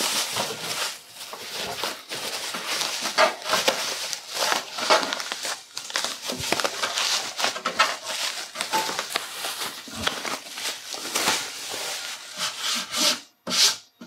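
Thin plastic protective bag rustling and crinkling as it is pulled and worked off a boxed AV receiver, with a brief pause near the end.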